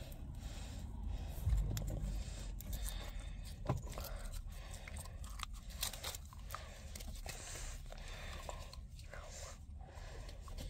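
A person chewing and biting food close to the microphone: irregular small clicks and mouth noises, mixed with scraping from the phone being handled.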